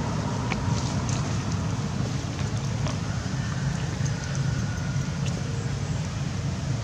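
Steady low rumble of wind buffeting the microphone, with faint high-pitched chirps twice about midway.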